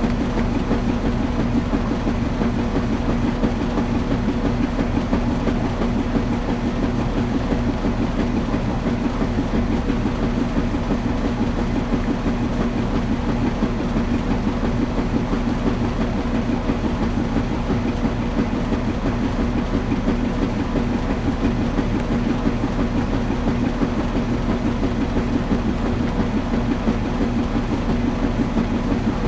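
Washing machine running: a steady, unbroken hum with a dense rumble underneath, holding the same pitch throughout.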